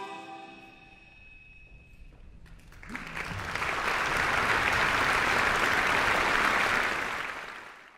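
The last chord of the orchestra and choir dies away, then after a short hush the audience bursts into applause, which holds steady and fades out near the end.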